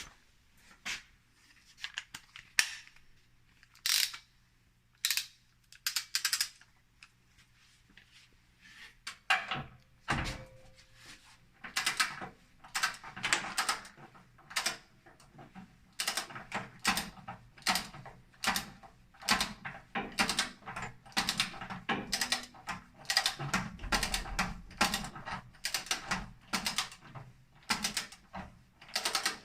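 Ratcheting torque wrench clicking as it unscrews a water heater's anode rod: a few scattered knocks at first, then fast, steady runs of ratchet clicks from about ten seconds in.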